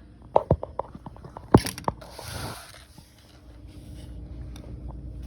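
A run of sharp clicks and knocks, one louder knock about a second and a half in, followed by a short rustling scrape, then a low steady room hum.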